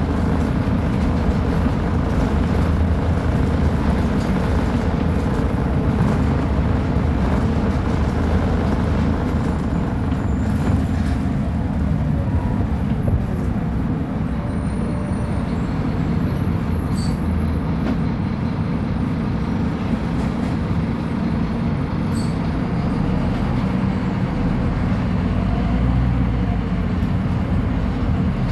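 Scania K310UB bus engine running steadily, a continuous low engine sound.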